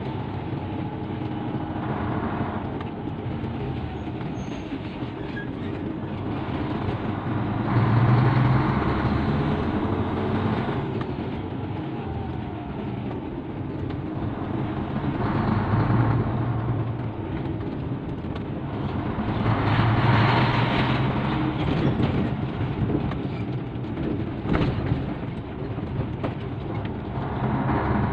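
Cargo truck's engine running with road noise, heard from inside the cab while driving. The engine swells louder three times.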